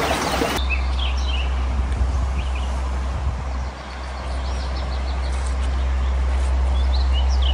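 Steady low wind noise on the microphone, with a few short bird chirps scattered through.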